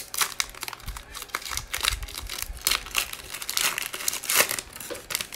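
Foil wrapper of a trading-card pack being torn open and crinkled by hand, a quick run of sharp crackles as the pack is pulled apart.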